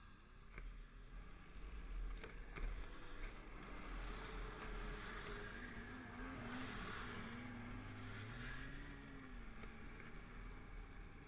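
Snowmobile engines running as several sleds pass close by, loudest as they cross, with the engine note rising as one speeds away up the trail. A low steady rumble runs underneath.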